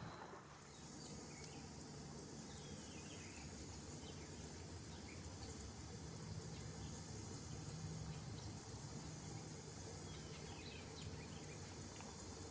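High-pitched insect chorus: a steady shrill trill with stretches of fast pulsing.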